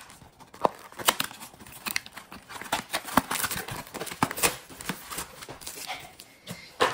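A cardboard Pokémon TCG Shiny Treasure ex box being torn open and its stack of foil booster packs pulled out: irregular tearing, crackling and crinkling of cardboard and foil wrappers.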